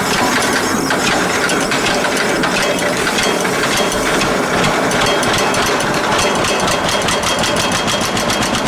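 Old John Deere tractor engine turning over and firing, a rapid, even knocking beat that stands out more clearly over the last few seconds.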